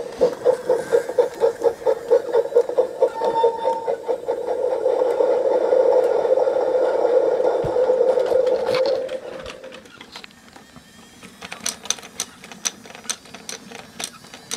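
Small electric motor of a battery-powered Brio toy train whirring. It pulses about six times a second at first, then runs as a steady buzz that grows louder and fades out about nine and a half seconds in. A quick run of sharp clicks follows near the end.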